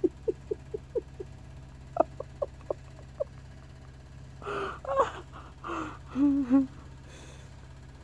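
A woman laughing in short breathy bursts, about four a second, with a few longer voiced laughs near the middle, heard through a phone's speaker on a video call.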